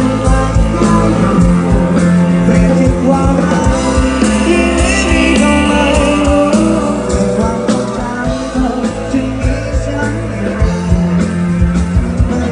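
Rock music played by a band, with guitar, bass and a steady drum beat, and some singing.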